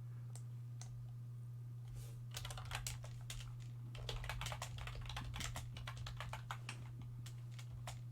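Typing on a computer keyboard: quick runs of key clicks starting about two seconds in, over a steady low hum.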